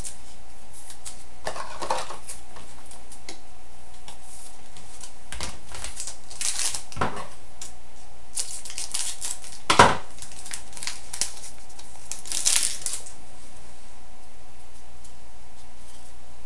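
Trading card pack wrapper being torn open and cards handled: scattered crinkles and light clicks, with one sharper snap about ten seconds in.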